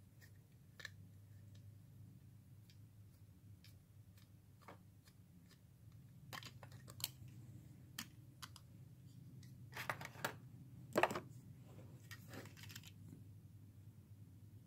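Faint, scattered clicks and taps of a 1/64 diecast model car and a small plastic package being handled and set down, with a run of louder clicks about ten seconds in.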